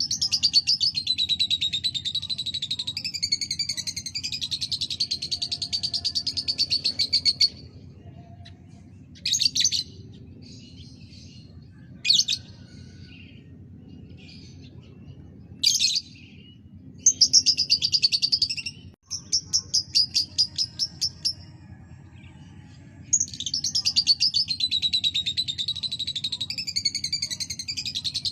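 Lovebird singing in long, rapid, chattering trills: one lasting about seven seconds, then short separate bursts, a run of trills, and another long trill starting near the end. A steady low hum runs underneath.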